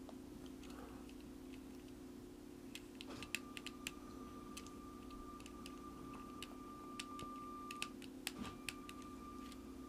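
Faint, scattered light clicks and taps over a steady low hum. A thin, steady high whine joins about three seconds in and breaks off briefly near the end.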